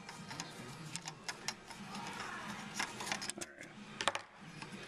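Irregular clicks and light clatter of carbon-fibre quadcopter frame plates and a small screw and rubber dampener being handled and knocked together on a desk. The loudest are a couple of sharp clicks about four seconds in.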